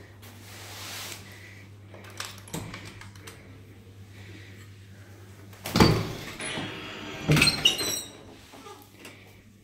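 Old cage elevator's doors being opened by hand: a heavy clunk about six seconds in, then a second rattle of knocks with short high squeaks of the door hardware.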